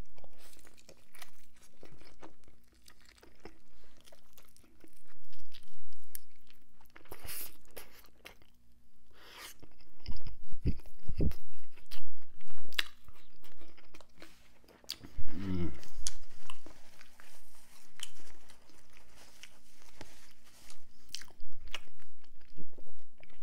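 Close-up chewing and crunching of a bite of rotisserie chicken topped with crisped cheese and Frank's hot sauce, with many small crackles and clicks. A couple of low bumps come about ten seconds in, and a short hummed voice sound a little past the middle.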